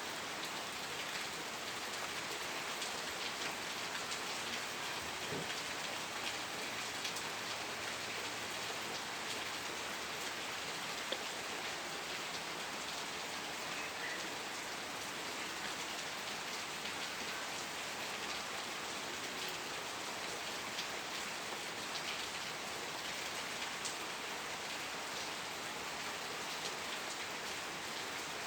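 Steady rain falling, a constant hiss with many small drops ticking on a surface.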